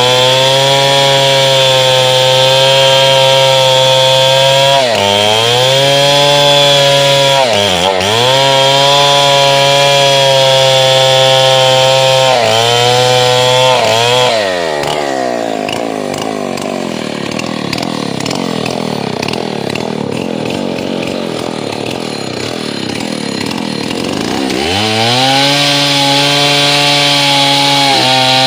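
Chainsaw at full throttle cutting through the thick, dense wood of a large old tree, the revs dipping briefly a few times as the chain bites. About halfway through, the engine speed falls away for some ten seconds, then rises back to full revs near the end.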